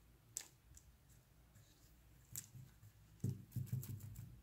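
Hands handling a piece of beadwork: two faint sharp clicks, then a cluster of dull bumps about three seconds in, which are the loudest part.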